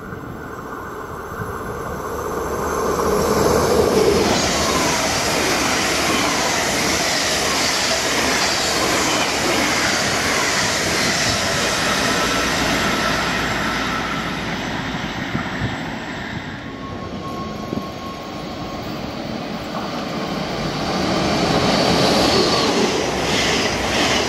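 NS double-deck Intercity electric trains passing along the platform: a steady rush of wheels on rail that builds a few seconds in, eases off about two-thirds of the way through, and swells again near the end as a train passes close by.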